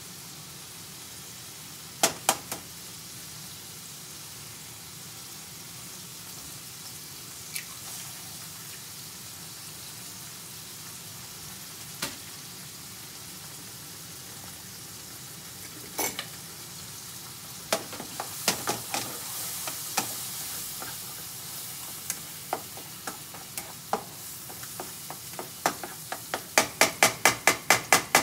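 Fried rice (rice, roast pork and egg) frying in a frying pan over a gas flame: a steady sizzle that grows louder about two-thirds of the way through. Scattered sharp clicks of a spatula striking the pan come through it, and near the end there is a quick run of about a dozen taps.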